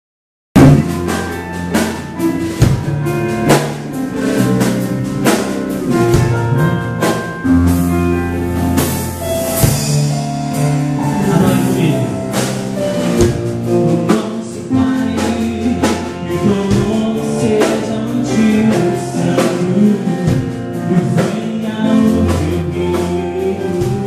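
Live gospel band playing with drum kit, bass and electric guitars, with singing over it. The music cuts in suddenly about half a second in, after a moment of silence.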